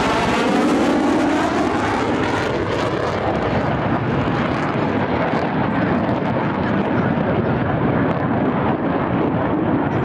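F/A-18 fighter jet passing overhead and climbing away in afterburner: loud, steady jet engine noise, with a sweeping, phasing swish in the tone during the first couple of seconds.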